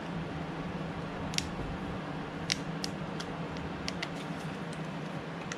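Light, irregular metal clicks of tweezers working a tiny fuel-line clamp onto a lawnmower carburetor's fuel line, about nine of them scattered over a few seconds, over a steady low background hum.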